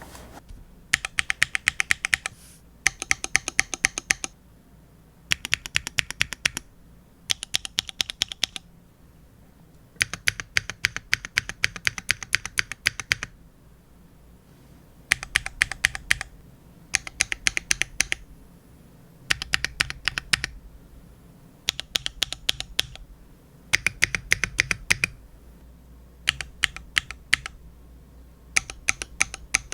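Stabilized long keys on a Mode Envoy mechanical keyboard with an aluminium plate and no foam, fitted with SWK linear switches, pressed in quick bursts of rapid clacky strokes with short pauses between the bursts.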